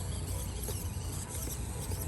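Small electric motor and gears of an Axial SCX24 1/24-scale RC crawler whining faintly as it climbs a steep dirt slope, over a steady low rumble.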